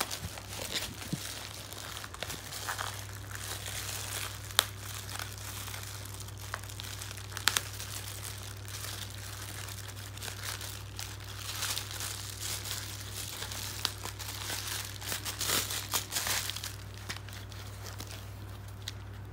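Plastic courier mailer bag and its white inner wrapping crinkling and rustling as they are torn open and handled by hand, with a few sharp snaps of the plastic.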